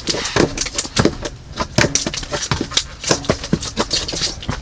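A run of irregular clicks and knocks, several a second, like small objects being handled.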